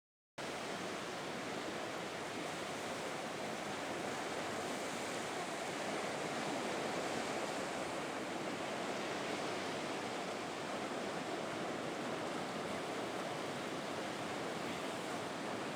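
Ocean surf washing on the beach, a steady, even rush of noise that cuts in abruptly about half a second in.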